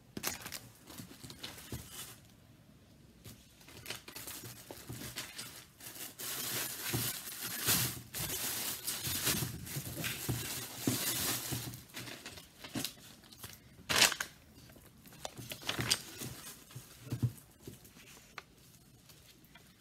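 Packaging being handled: rustling and tearing, loudest through the middle, with a few sharp knocks near the end, the first the loudest.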